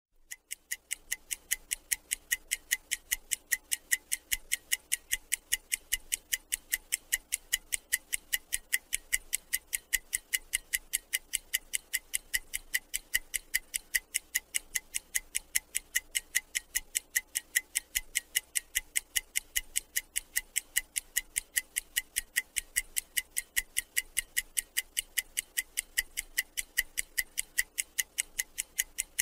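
Steady, even clock-like ticking, about four ticks a second.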